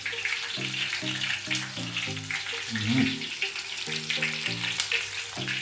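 Chopped scallion, onion and pepper sizzling and crackling steadily in hot vegetable oil, left to blacken so they flavour the oil. Background music plays under it.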